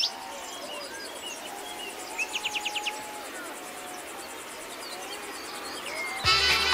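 Summer outdoor ambience: crickets chirring steadily while small birds chirp and call, with a quick trill about two seconds in. Just after six seconds music starts suddenly, as play is tapped on a phone.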